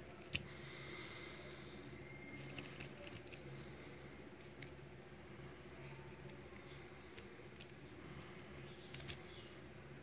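Small metal clicks from a metal link watch strap and its folding clasp being handled: one sharp click just after the start, a few scattered ones, and a quick cluster near the end.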